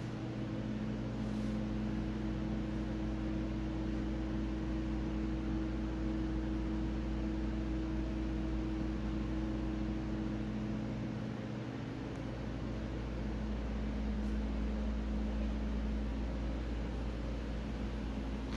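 Steady mechanical hum: a few unchanging low tones over an even hiss, dipping slightly in the bass about eleven seconds in.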